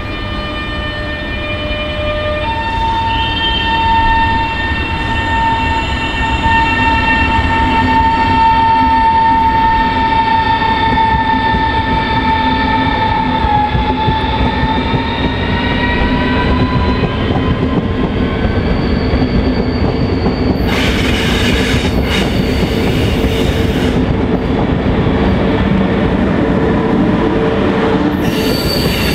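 Electric passenger train moving through a station: a whine of several steady tones from the traction equipment, rising in pitch about halfway through, over a steady rumble of wheels on rails. Later come loud noisy bursts as an SBB Re 460 locomotive and its coaches pass close by.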